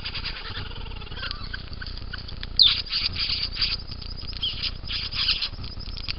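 Satin bowerbird giving a run of harsh, buzzy chattering notes that grow louder and busier from about two and a half seconds in.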